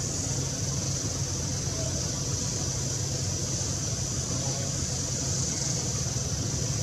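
Steady outdoor background noise: a constant low hum under a continuous high-pitched drone, with no distinct calls or knocks.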